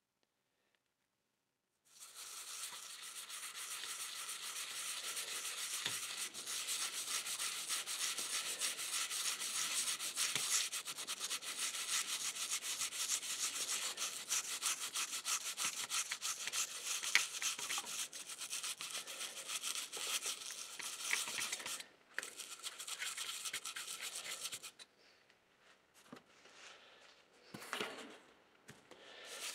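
Toothbrush bristles scrubbing a tarnished brass model locomotive shell with cleaning paste to remove the tarnish: a steady, rapid rubbing that starts about two seconds in, breaks off briefly near the end, then gives way to a few fainter handling sounds.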